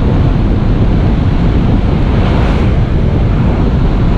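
Loud, steady rush of wind through the open jump door of a small plane in flight, buffeting the microphone in the cabin, mixed with the aircraft's engine.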